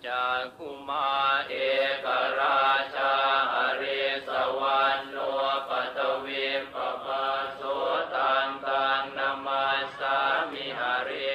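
Buddhist chanting in Pali: a steady, continuous run of chanted syllables on a narrow range of pitches.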